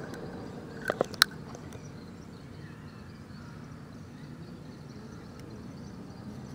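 Three sharp clicks about a second in as hands handle a small oil-filled cap and a scooter's oil filter cover, over a steady low background.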